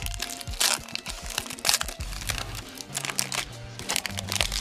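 Foil Pokémon booster pack wrapper torn open and crinkled by hand in sharp, irregular crackles, over background music.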